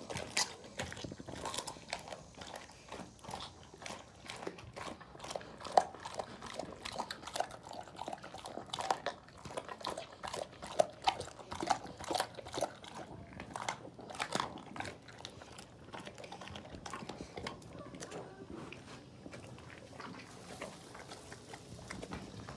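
A large dog crunching and chewing a raw chicken carcass, bones cracking in irregular snaps. The crunching thins out near the end.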